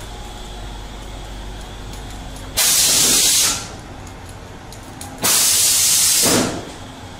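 Two sudden, loud hissing blasts from a pressurised jet. Each lasts about a second, the second slightly longer, and each starts abruptly and tails off. Both sit over a faint steady hum.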